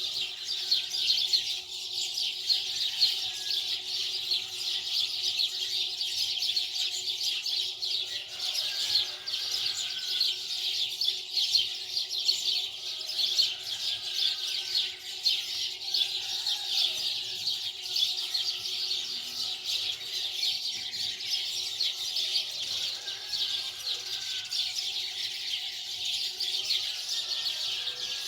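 Many small birds chirping continuously, a dense overlapping chatter of short high chirps, over a faint steady hum.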